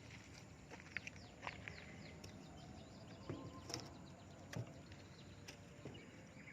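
Faint outdoor ambience of small birds chirping: many quick, high, falling chirps, with a few scattered light clicks and knocks.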